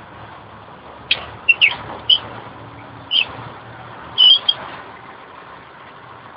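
A run of about seven short, sharp high chirps from about one to four and a half seconds in, over the low steady engine hum of a slow-moving ERF lorry.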